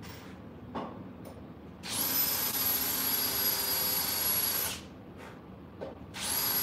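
Electric wood router motor running at full speed with a steady high whine. It is switched on about two seconds in, stops about three seconds later, and starts again near the end.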